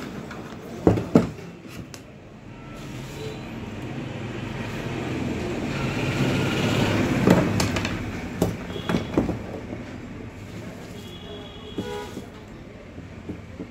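Sharp clicks and knocks from a Philips electric iron's plastic body and parts being handled and worked with pliers during disassembly. Behind them, a vehicle passes, its noise swelling over several seconds and then fading.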